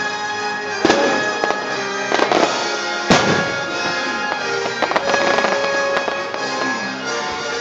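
Fireworks bursting overhead in several sharp bangs, the loudest about three seconds in, over continuous music.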